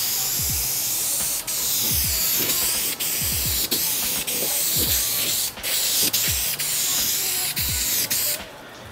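Aerosol spray primer can hissing as it is sprayed in passes over a car hood, the spray broken by many very short gaps and stopping for a moment near the end.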